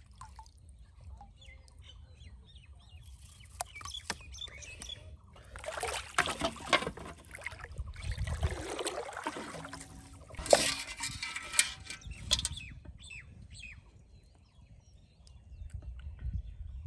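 Water splashing and sloshing in several irregular bursts, with a few sharp knocks among them.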